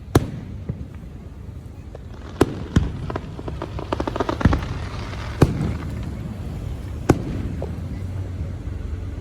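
Firecrackers going off: several single sharp bangs, about five, and a rapid run of crackling pops about three to five seconds in.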